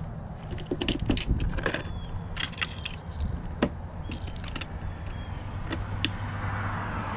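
Small twin metal fishing-rod bells jingling as they are handled, with clicks and clatter as they are taken out of a plastic tackle box. The bells ring clearly about two and a half seconds in for about a second, and again faintly near the end.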